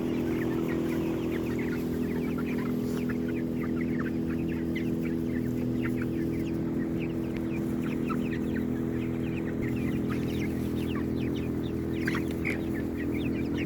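A flock of chickens clucking and chirping as they forage in grass, many short quick calls overlapping. Beneath them runs a steady low mechanical hum.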